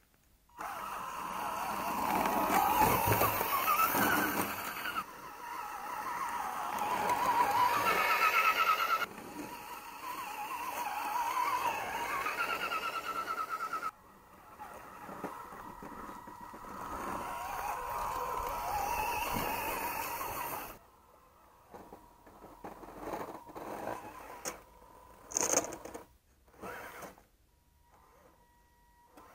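Electric motor and gear drivetrain of an MST CMX scale RC crawler whining, the pitch rising and falling with the throttle, in several stretches that cut off abruptly. The last several seconds are quieter, with scattered sharp clicks.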